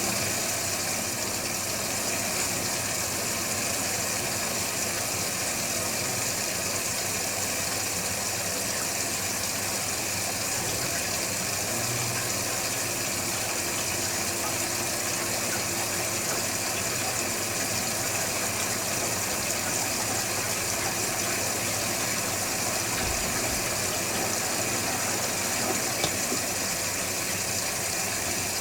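Electrolux Wascator W355H commercial washing machine running steadily, a constant mechanical noise with a high hiss and no change in pitch.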